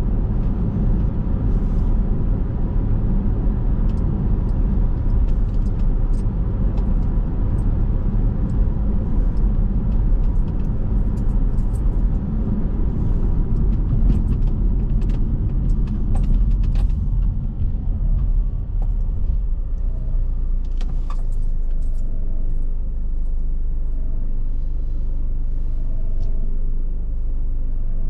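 Car driving: a steady low road and engine rumble, rougher for the first two-thirds, then smoother and slightly quieter.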